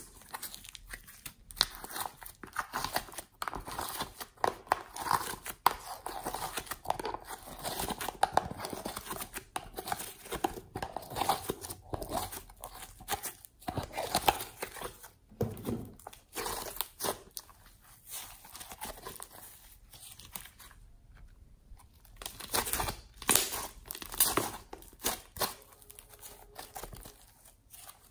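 Thick blue slime squeezed out of a plastic bottle, then pressed and stretched by hand among other slimes in a plastic tub: a dense run of small wet crackles and pops, sparser for a few seconds past the middle.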